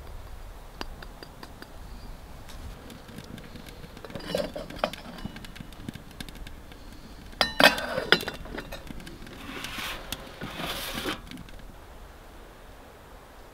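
Metal camp cookware clinking and knocking while coffee is made. A few light clicks come first, then the loudest clinks about halfway through, with a short ringing tone, followed by about two seconds of steady rushing noise.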